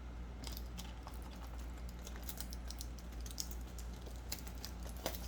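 Irregular light clicks and taps of hands handling a wristwatch and its box and packaging during unboxing, with a sharper click near the end.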